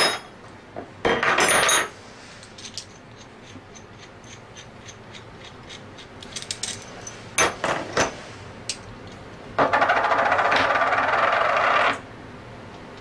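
Small metal scroll-pump parts, the bearing and its housing, clinking and being set down on a hard bench top. There are sharp clinks near the start and again about halfway through, a run of light ticks in between, and a rubbing noise lasting about two seconds near the end.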